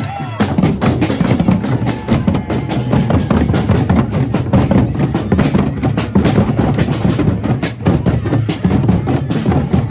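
A drum band in a street procession playing a loud, busy beat; the drumming starts sharply just after the beginning.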